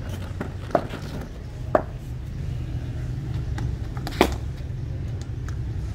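Cricket bat striking a leather ball: sharp knocks, two about a second apart near the start and the loudest about four seconds in, over a steady low rumble.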